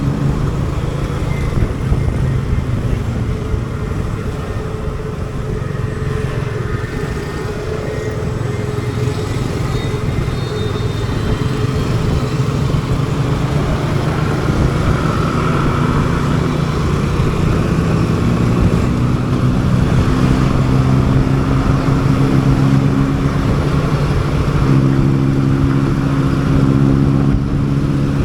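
Motorcycle engine running steadily while riding along city roads, with road and traffic noise around it. In the second half the engine note holds steady and gets a little louder.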